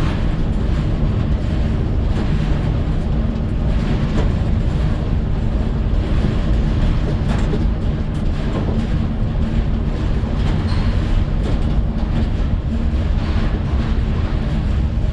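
Steady, loud rumble of a moving vehicle: engine and road noise.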